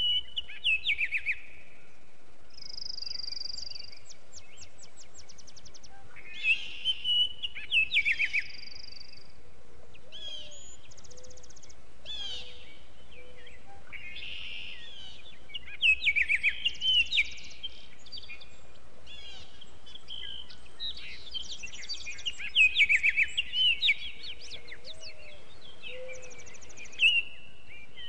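Songbirds singing: phrases of quick chirps, trills and short buzzy notes come every few seconds, over a faint steady background.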